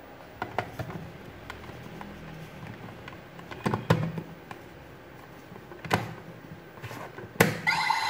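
Hard plastic clicks and knocks as a card deck is handled and slid into the buckle of a CSM V-Buckle, a Kamen Rider Ryuki toy transformation belt, ending in a sharp click as the deck seats near the end. The belt's electronic sound effect then starts from its speaker.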